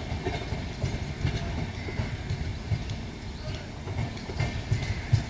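Rajdhani Express coaches pulling away, their wheels clattering over rail joints in irregular knocks over a steady low rumble.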